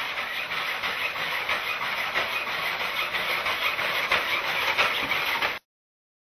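Hubo humanoid robot's electric joint motors whirring as it walks: a steady hiss-like whir with fine rapid clicking, cutting off suddenly near the end.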